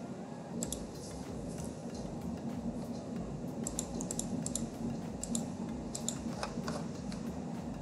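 Scattered light clicks at a computer, some in quick clusters, over a steady low hum.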